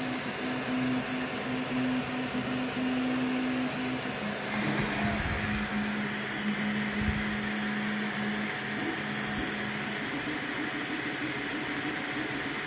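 Homemade CoreXY 3D printer printing: its cooling fans run with a steady, noisy whir, over a low hum from the stepper motors on TMC2209 drivers that shifts to a new pitch every few seconds as the print head changes moves.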